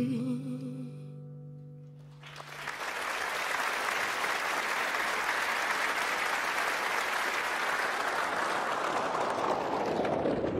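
The song's last sung note, wavering slightly in pitch, and a held chord fade out. About two seconds in, crowd applause on the recording comes in and carries on steadily.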